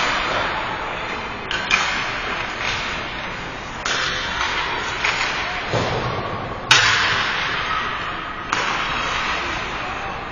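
Ice hockey play in an echoing rink: a series of sharp knocks from sticks, puck and boards, the loudest about two-thirds through, each ringing out over the steady scrape and hiss of skates on the ice.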